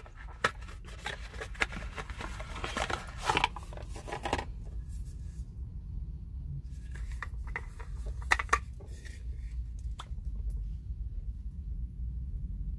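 Handling sounds of a cardboard product box being opened and a plastic cream jar taken out and its lid worked loose. The scraping and clicking are busiest in the first few seconds, then come in a few scattered clicks. A low steady rumble runs underneath.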